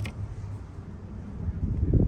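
Wind buffeting the microphone: a low rumble that swells into a stronger gust near the end.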